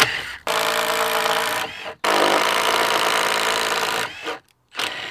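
Milwaukee impact driver spinning a spade bit as it bores through a pressure-treated wooden fence post. The motor runs under load in two long runs, about a second and then about two seconds, each cut off abruptly, with two short bursts near the end.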